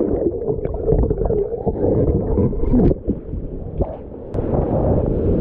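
Muffled underwater gurgling and bubbling, heard with the microphone under the river's surface. About four seconds in it comes up into the air and the steady rush of whitewater rapids takes over.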